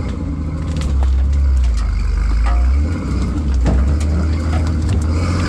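Nissan rock-crawler rig's engine running at low revs, a steady low rumble, with a couple of sharp knocks a little past halfway.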